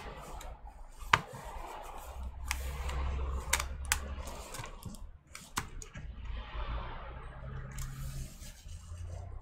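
Scattered sharp plastic clicks and taps, with some scraping, as a laptop's keyboard assembly is handled and worked at to get it loose. The loudest click comes about a second in, over a steady low hum.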